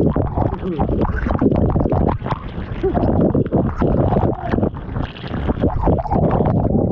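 Water splashing and sloshing right against a phone's microphone held at the surface while swimming, with irregular knocks and rubbing from the handset being jostled.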